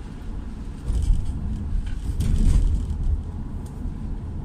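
Car driving on a wet road, heard from inside the cabin: a steady low rumble of engine and tyres with a hiss above it. It swells about a second in and again around the middle.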